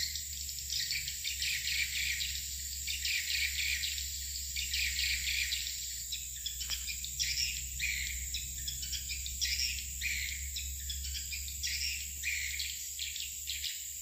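Swiftlets twittering: a dense, continuous chatter of short high chirps, over a steady high-pitched tone.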